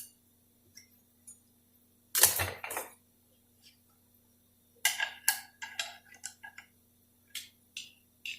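Steel clutch plates from a Dodge 46RE transmission's overdrive clutch pack clinking against each other as they are handled: a knock about two seconds in, then a quick run of light ringing metallic clinks, with a few more near the end.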